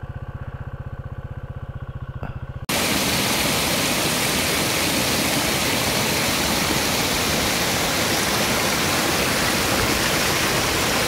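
Corven Hunter 150 motorcycle's single-cylinder engine idling with an even pulse, then about two and a half seconds in an abrupt change to a loud, steady rush of flowing river water.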